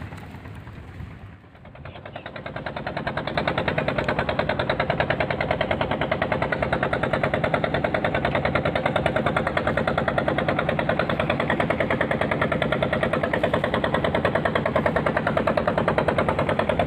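Inboard engine of a small wooden motorboat chugging with a fast, even beat, about nine pulses a second. It grows louder about two seconds in, then runs steadily as the boat passes close by.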